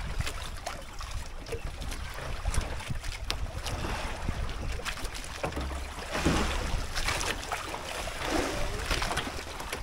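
Wind buffeting the microphone and water sloshing against a small outrigger fishing boat, with scattered light clicks and knocks.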